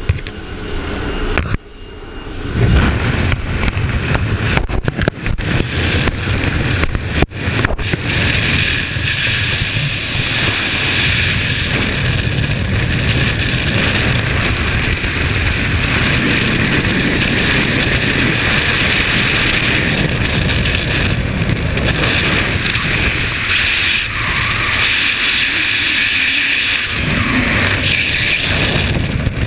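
Aircraft noise at the open door of a jump plane for the first two seconds, then skydiving freefall: wind rushing loud and steady over a helmet camera's microphone, with a few buffeting clicks early on.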